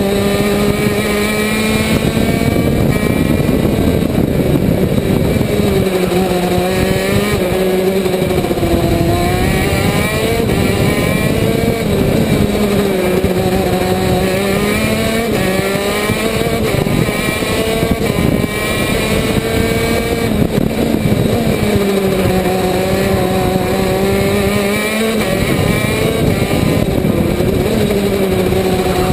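125 cc two-stroke KZ2 shifter kart engine at racing pace, its note repeatedly dropping and climbing again through the corners, over a constant rush of wind and track noise.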